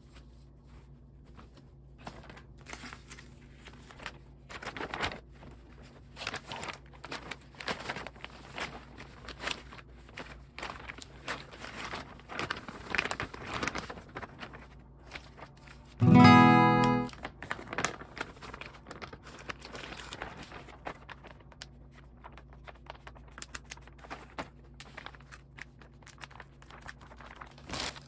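Acoustic guitar background music over rustling and crinkling of packaging. About halfway through, a loud pitched screech lasting about a second: packing tape pulled off its roll.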